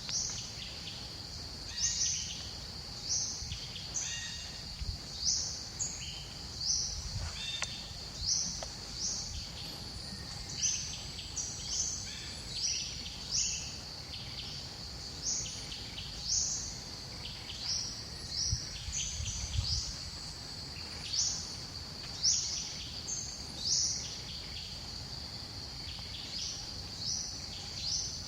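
Steady high-pitched insect drone, with short rising chirps repeating roughly once a second above it.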